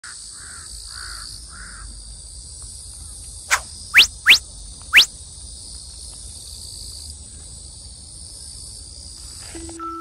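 Steady, high-pitched chorus of insects trilling in tall grass. About halfway through, four quick, loud rising whistles come in close succession.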